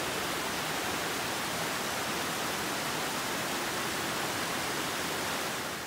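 Fast-flowing creek water rushing, a steady even noise.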